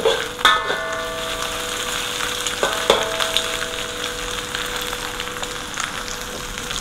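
Stir-fry sizzling in a wok while a metal wok spatula stirs and scrapes through it. The spatula clanks against the wok near the start and again about three seconds in, leaving the wok ringing.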